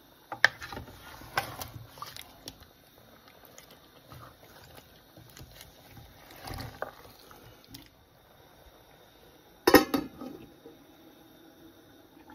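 Spoon knocking and scraping against a stainless steel pot as a thick beef and pumpkin curry is stirred, in scattered clicks and knocks. About ten seconds in comes a loud short clatter as the metal lid is set on the pot.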